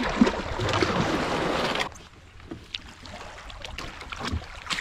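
A plastic sea kayak's hull grinding up onto a sandy beach strewn with broken shells, a grainy scraping rush for about two seconds that stops suddenly. After it come quieter scattered clicks and crunches on the shells.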